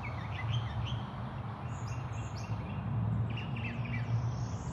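Wild birds chirping and whistling outdoors, several short high calls scattered throughout, over a steady low background rumble.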